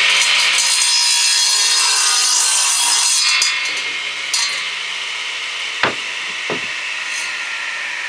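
Rockwell radial arm saw crosscutting a pressure-treated 2x6 board, loud for the first three seconds or so, then running on more quietly. Two sharp knocks come near the end.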